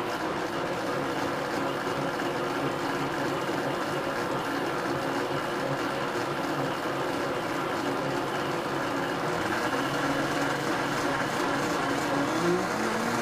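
Blendtec Designer 725 blender running its pre-programmed Smoothie cycle, the motor spinning a WildSide+ jar of liquid in a steady, even drone with a swirling wash. About twelve seconds in, the motor's pitch rises as the cycle steps up speed.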